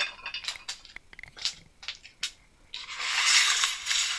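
Small metal chuck parts clinking in a metal tray. Then, about three seconds in, a bristle brush scrubs over the parts for just over a second, cleaning the old four-jaw chuck's jaws and screws.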